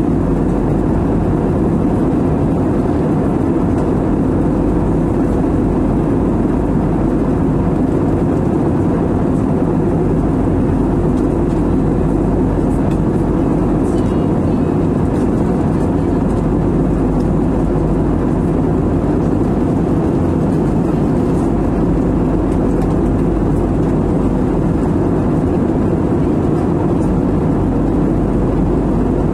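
Steady cabin noise of an Airbus A320-family jet airliner in cruise, heard from a window seat: engines and air rushing past the fuselage as an even, unchanging low rumble.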